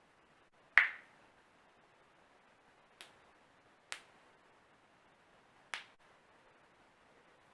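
A person's joints cracking: four sharp pops, the loudest about a second in, then three fainter ones spread over the next five seconds.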